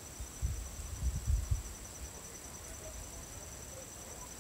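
Insects trilling steadily at a high pitch in two continuous tones. About half a second to a second and a half in, a few low, dull bumps sound on the microphone.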